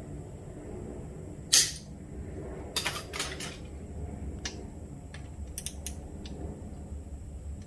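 Metal parts being handled and fitted by hand: a few sharp clicks and knocks, the loudest about a second and a half in, then a quick cluster of clicks and a few lighter ticks, over a low steady hum.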